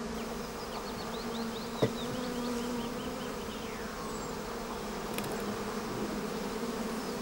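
Many honeybees buzzing around a beehive: a steady, even drone.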